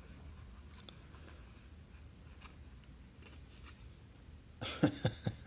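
Trading cards being flipped and slid through by hand: faint rustling, then several sharp clicks and taps near the end as the hard-edged mini framed autograph card is handled against the stack.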